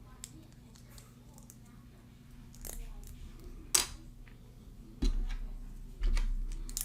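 Plastic Mega Construx building pieces being handled and pressed together: scattered sharp clicks, the loudest about midway, then two heavier bumps of handling noise near the end.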